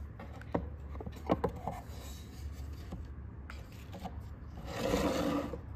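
Handling a wooden knife presentation box: a few sharp clicks and knocks in the first two seconds as its metal clasp and lid are worked. Then a louder scraping rub of about a second near the end as the folding knife is lifted out of its wooden holder.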